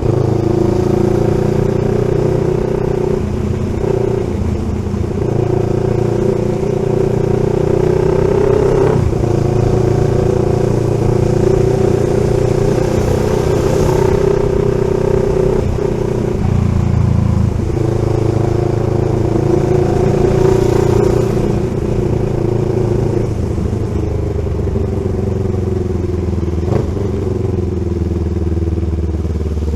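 CFMoto 700 CL-X Sport's parallel-twin engine running through an SC-Project slip-on exhaust with the catalytic converter swapped for a resonator mid-pipe. The engine note rises and falls in pitch, with a few sudden drops, about 9 and 17 seconds in.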